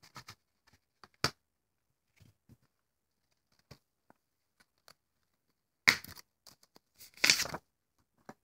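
A plastic Blu-ray case being handled: faint scattered clicks and taps, a sharp click about a second in, then two louder, short plastic cracks near the end as the case is opened.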